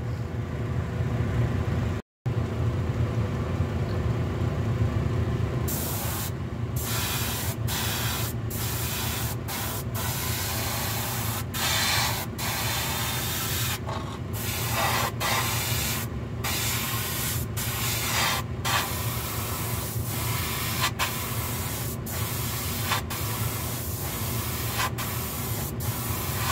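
Dual-action airbrush hissing as it sprays water-based paint in short passes. From about six seconds in it starts and stops roughly every second, over a steady low hum.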